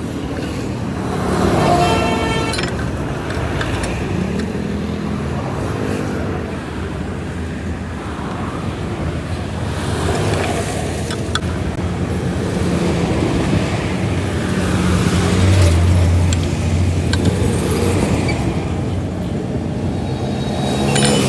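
Road traffic, with motor vehicles passing by one after another.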